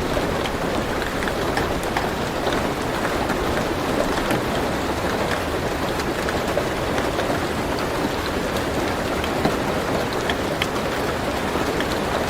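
Steady rain drumming on a car roof, heard from inside the car: a dense hiss of rain with many individual drops ticking sharply on the metal.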